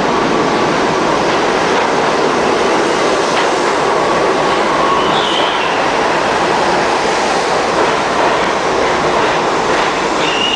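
New York City subway train pulling into an underground station and running along the platform, with the steady, loud noise of its wheels on the track. A brief high wheel squeal comes about halfway through, and another starts near the end.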